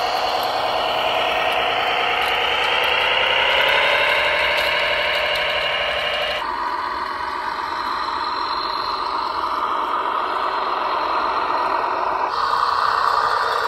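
Radio-controlled model tractors running: a steady, pitched mechanical engine-like sound that rises in pitch over the first few seconds, then shifts abruptly about six seconds in and again near the end.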